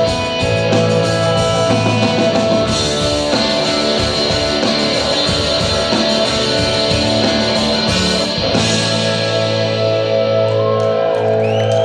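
Shoegaze rock band playing live without vocals: layered electric guitars, bass and drums. About eight and a half seconds in, the drums stop and the guitars ring on in long held chords, and whistles from the crowd begin near the end.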